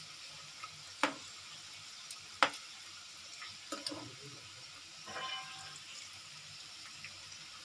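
Batter-coated cauliflower florets frying in hot oil in a pan, a steady sizzle. A slotted spoon clicks sharply against the pan about one, two and a half and four seconds in as the pieces are turned.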